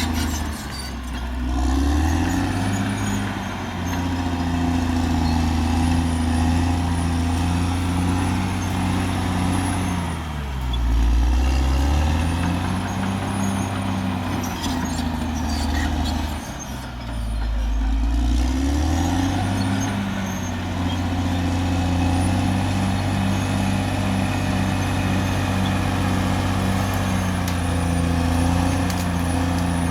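Caterpillar D6R XL bulldozer's diesel engine running under load. Its pitch sags and recovers twice, about ten seconds in and again around sixteen to eighteen seconds, as the engine is pulled down by the work.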